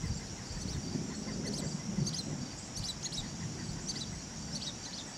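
Distant thunder rumbling low and steadily, under a steady high drone of insects, with a few short bird chirps from about a second and a half in.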